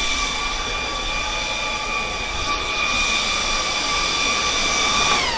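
Loud, steady high-pitched whine of a load bank's cooling fan running, which begins to wind down, its pitch falling, just before the end.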